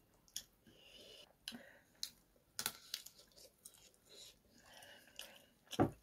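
Close-miked eating by hand: chewing and crunching of chicken curry with rice, and sticky clicks as fingers mix rice on a plate. A single loud thump comes near the end.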